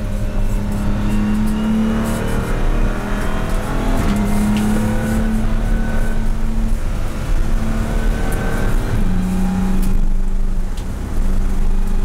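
BMW M235i Racing's turbocharged straight-six heard from inside the cabin, accelerating hard with its note rising, then dropping at upshifts, twice in the second half.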